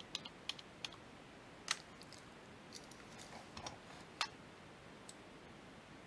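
Scattered faint clicks and taps of computer input, about a dozen at irregular spacing, two of them louder, about a third and two-thirds of the way through.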